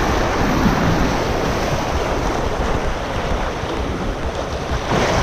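Small surf waves washing and splashing around a person wading in shallow sea water, with wind buffeting the microphone. A louder wash comes near the end.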